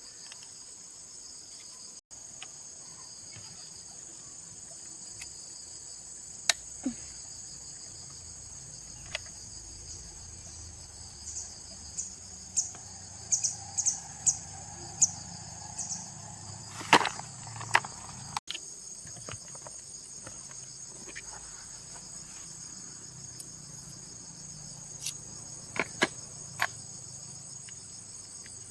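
Steady high-pitched insect chorus, likely crickets, with scattered sharp clicks and knocks over it, a quick run of them in the middle and a louder knock a little after.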